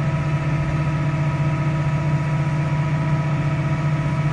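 Tractor diesel engine running steadily, heard from the driver's seat: a constant low hum with steady higher tones above it.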